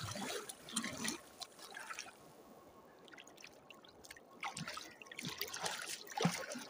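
A hand paddling in canal water beside a rubber inner tube: small splashes and trickling strokes, fewer and quieter in the middle.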